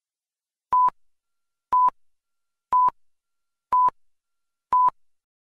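Five short electronic beeps of a single steady pitch, evenly spaced about one a second, with silence between them, like countdown pips or a reference test tone.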